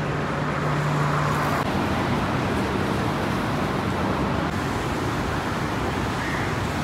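Steady city road traffic noise from cars passing on a wide road, with a low engine hum in the first second and a half.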